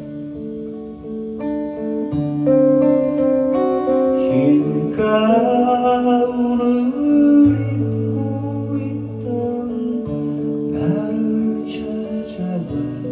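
A man singing to his own steel-string acoustic guitar, which plays chords and picked notes that change every second or so.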